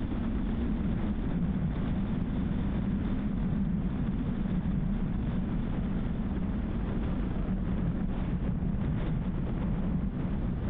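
A car driving at a steady speed: a constant low rumble of tyres on the road surface and engine, with a thinner hiss above it and no change in pace.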